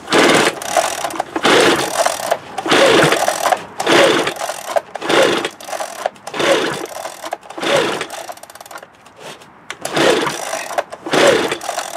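Echo PB-265L backpack blower's two-stroke engine being cranked on its recoil pull-starter: about nine quick pulls, a little more than one a second, each a whir of rope and spinning engine rising and falling in pitch, with a short pause about two thirds through. The engine, choked and primed, never fires: not a single pop.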